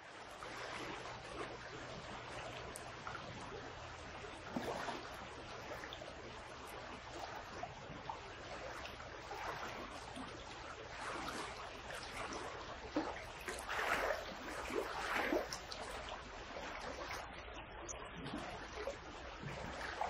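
Running river water: a steady rush of flowing water with a few louder splashes in the second half.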